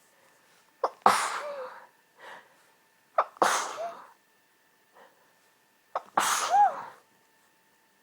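A person sneezing three times in a hayfever sneezing fit, about two and a half seconds apart. Each sneeze has a sharp catch of breath just before it and a brief voiced end, with small breaths between.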